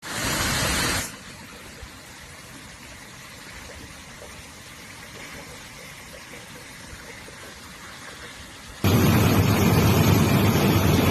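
Rushing, rumbling noise of a lahar, a volcanic mudflow of water, sand and rock, pouring down a river channel. It is loud for the first second, much quieter for most of the stretch, then suddenly loud again with a heavy low rumble about nine seconds in.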